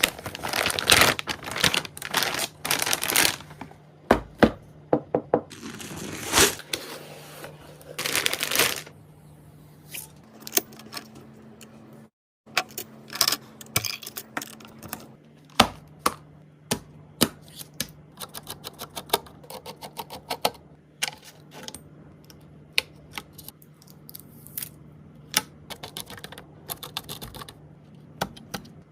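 Computer parts being handled and fitted during a PC build: a long run of sharp clicks and knocks, with bursts of rustling in the first nine seconds, over a steady low hum.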